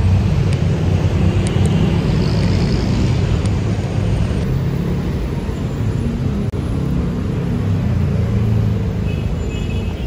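Street traffic: vehicle engines running and passing, a steady low rumble.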